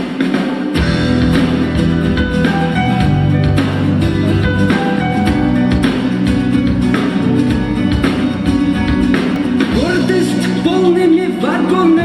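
Instrumental introduction of a pop song: a band with a steady beat and sustained chords, with a voice gliding in near the end.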